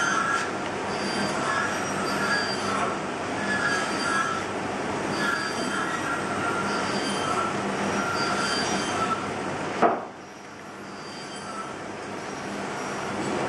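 Carving knife slicing into pine wood in repeated strokes, each cut giving a short squeak, over a steady rushing noise. A sharp knock comes about ten seconds in, after which the noise drops and slowly builds back.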